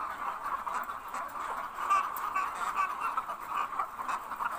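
A large flock of caged laying hens clucking, a steady chorus of many overlapping calls.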